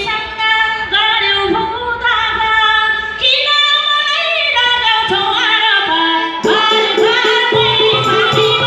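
Women singing a Nepali folk song into microphones with live band accompaniment. About six and a half seconds in, the band and percussion come in more fully under the voices.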